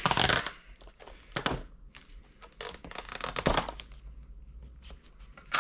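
Crinkling and rustling of food packaging handled in a few short bursts, with a sharp click near the end.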